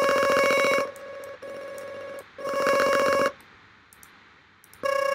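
Synthesizer tones from multiplied oscillators in Blender's Audio Nodes, played by MIDI keys: two short buzzy notes at the same pitch, each with a fast warbling modulation that makes them ring like a telephone, with a quieter held tone between them. After a short near-quiet gap with a few faint clicks, a new steady note starts near the end.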